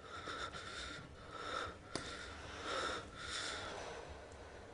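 A person's shaky, sobbing breaths: about six quick noisy inhales and exhales with sniffs, in the distress of pleading and crying.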